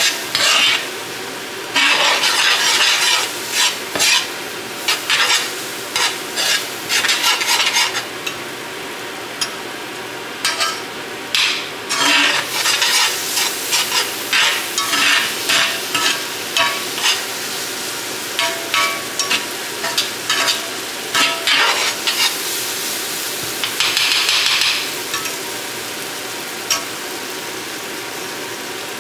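Diced mushrooms and flour frying in a pan, a steady sizzle with many quick, irregular scraping strokes of a spatula stirring them around. The flour is cooking into a roux for mushroom gravy.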